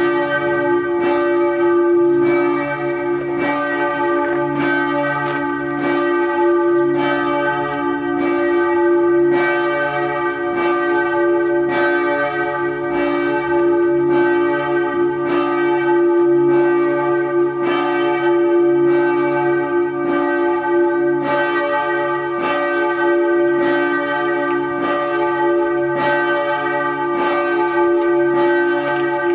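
Several bells ringing together, struck over and over roughly twice a second, their tones ringing on between strokes.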